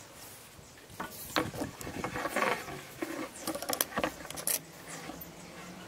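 Irregular small knocks, taps and rubbing of a cane rod being handled and turned on a wooden workbench.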